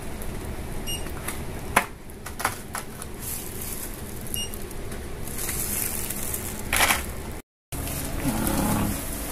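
Two short electronic beeps at a shop checkout, about three seconds apart, as the cashier rings up items, with a few clicks of the items being handled and a burst of rustling a little after the middle.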